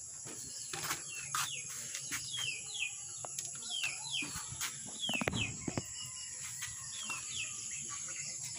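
Background birds and insects: a steady high insect drone with short falling chirps in pairs, about one pair a second. A few clicks, with a brief cluster of knocks and rattles a little past the middle.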